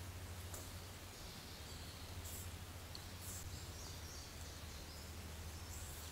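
Steady low electrical hum from a Stealth Cam trail camera under a faint hiss, with a few brief, faint high bird chirps.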